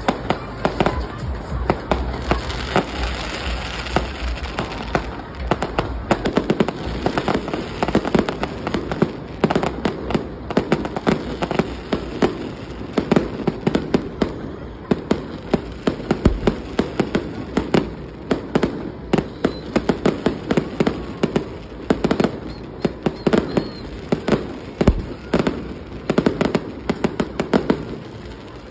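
Fireworks display: a dense, rapid string of bangs and crackles from bursting aerial shells, with a few deep booms standing out.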